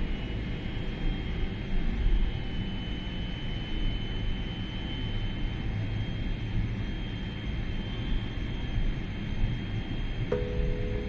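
Jet airliner heard from inside the cabin: a steady low rumble of engines and airflow with a faint, thin high whine over it. Music notes come in near the end.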